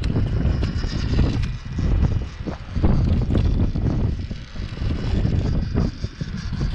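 Small electric motor and gearbox of a 1/16-scale WPL RC crawler pickup whining as it crawls over rock, with scattered knocks and scrapes of tyres and chassis on the stone. Wind rumbles on the microphone throughout.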